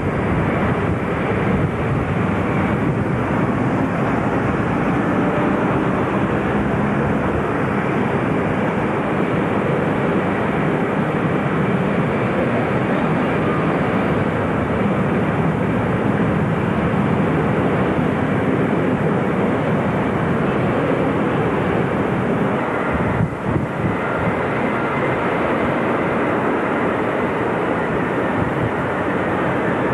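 Boeing 747 jet engines running, a steady rushing noise heard from a distance with no change in pitch, broken briefly about 23 seconds in.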